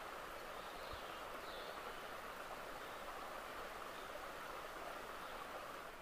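Water running steadily, an even unbroken rush with no individual splashes.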